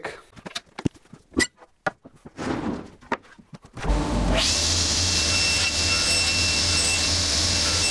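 A few clicks and knocks of wood and a steel ruler being handled. Then, about four seconds in, an Altendorf sliding table saw starts and runs steadily, a loud even hiss with a faint high whine, to cut away a section of an old door rail.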